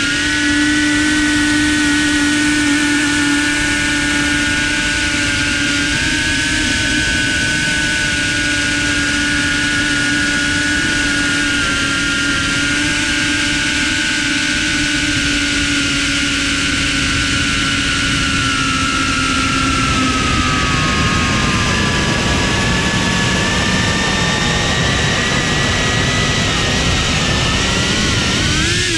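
Cinewhoop FPV drone's brushless motors and ducted propellers whining steadily, several tones moving up and down in pitch with the throttle. The pitch sags about two-thirds of the way through and climbs sharply again near the end.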